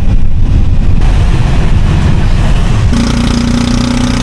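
Engine and road noise of a passenger vehicle on the move, a loud low rumble, with a steady engine tone coming in about three seconds in.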